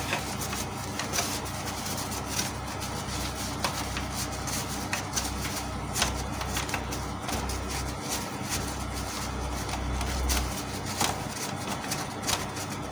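Hands cleaning and handling the plastic sensor and gear parts of a Canon MP287 inkjet printer's paper-feed mechanism: scattered small plastic clicks over steady rubbing. A low hum runs through the middle.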